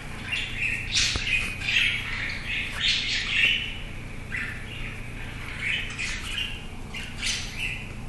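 Cockatiel calling in a string of short chirps and squawks.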